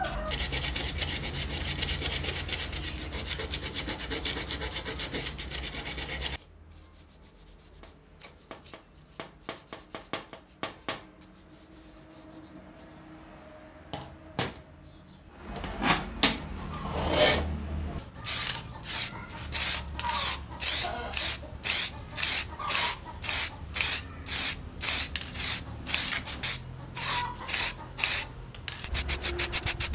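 A brush scrubbing a wet transistor-radio circuit board: a steady rubbing hiss. It stops about six seconds in, giving way to faint clicks and the handling of small parts. Later comes a run of short, even strokes, about two a second.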